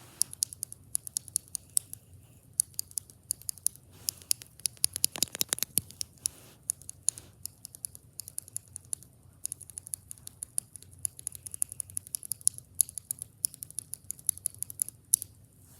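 Mechanical keyboard with Akko Jelly Black linear switches being typed on. It gives a run of sharp, uneven keystroke clacks, with a quick flurry of keys about five seconds in.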